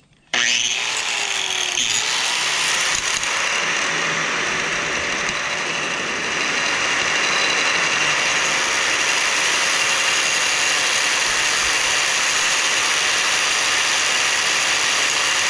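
Homemade metal lathe rig switching on abruptly and running steadily, cutting down a 25 mm steel rod with a continuous grinding, rattling noise that grows a little louder about six seconds in.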